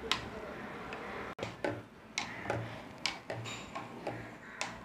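Metal spoon stirring an iced soda drink in a tall glass, giving irregular light clinks against the glass and ice cubes, about one every half second.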